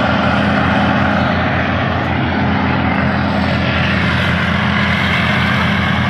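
A New Holland self-propelled forage harvester chopping standing maize for silage. Its engine and chopper run with a steady drone and a rushing noise over it, without let-up.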